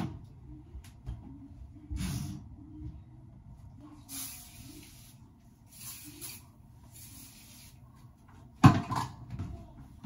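Scrubbing Bubbles glass cleaner sprayed onto a mirror in three short hissing bursts, each just under a second and about a second apart. Near the end there is one loud knock.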